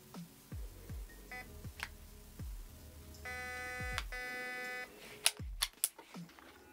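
Electronic trigger unit of a Delta Armory Grand Power R15 Freya airsoft AEG giving programming beeps as a fire mode is set: a short beep, then two longer beeps in a row. Short low tones falling in pitch come in between, and several sharp clicks come near the end.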